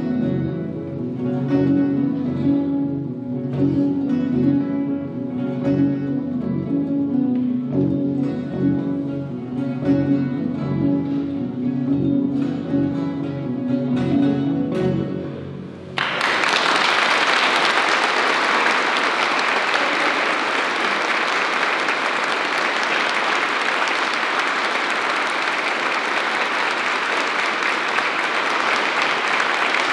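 An ensemble of acoustic guitars plays plucked chords and melody that die away on a final chord. About halfway through, audience applause breaks out abruptly and goes on steadily.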